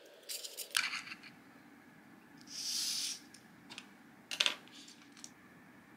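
Light clicks and taps of stiff white card parts and small tools being handled and set down on a cutting mat. There is a brief swish about halfway through and a sharper double click near the end.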